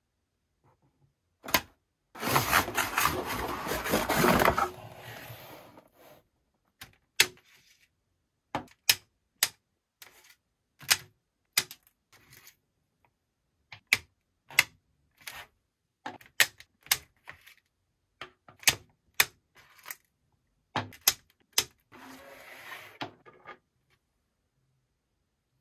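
Scissors snipping the plastic ties that hold toy figures to a cardboard packaging insert: a long series of sharp, separate snips. About two seconds in comes a few seconds of loud rustling as the packaging is handled, and a shorter rustle comes near the end.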